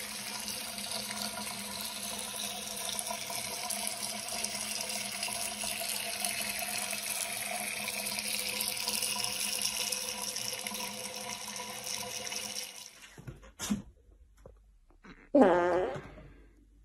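Tap water running steadily into a sink in which a monkey sits. After it stops there is a brief click, then a short wavering call near the end.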